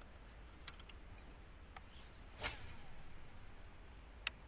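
Faint handling sounds: a few small clicks, a brief swish about two and a half seconds in, and one sharp click near the end, over a low steady hiss.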